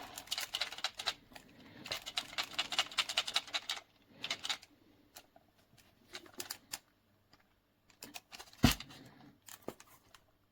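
A run of small, light clicks and rattles, densest about two to three and a half seconds in, with one louder knock about eight and a half seconds in.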